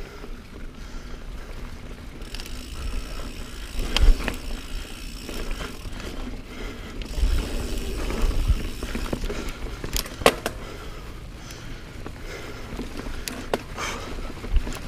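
Niner Jet 9 RDO mountain bike rolling along dirt singletrack: a steady low rumble and hiss from the tyres and frame, broken by sharp knocks and rattles as the bike goes over bumps, loudest about four seconds in and again around ten seconds.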